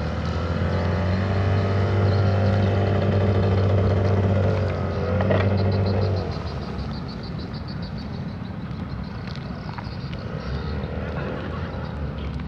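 An engine running with a steady low hum and a few overtones; its pitch shifts briefly about five seconds in, and it cuts off about six seconds in.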